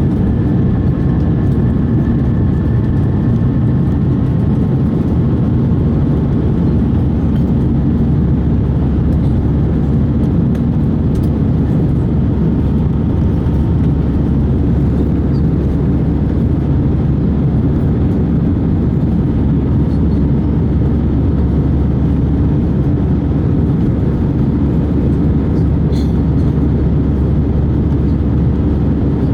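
Airbus A320 cabin noise during the climb after takeoff: jet engines and rushing air make a steady deep roar, with a faint high whine that fades away in the first few seconds.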